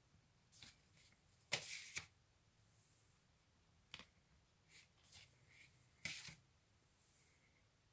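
Cardboard LP record sleeves slid off a stack by hand: a handful of short, faint rustles and scrapes, the loudest about one and a half seconds in.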